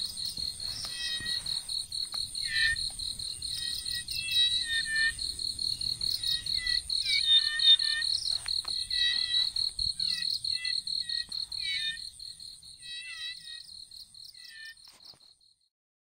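Outdoor chorus of a steady, high, fast-pulsing insect trill, with repeated short, falling chirps from small frogs coming in clusters; the whole chorus fades out near the end.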